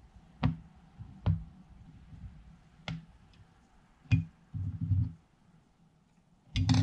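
Clicks and knocks of 1911 pistol parts being handled and set down during disassembly: several single clicks spaced a second or so apart, a few duller knocks together past the middle, and the loudest burst of clicks near the end.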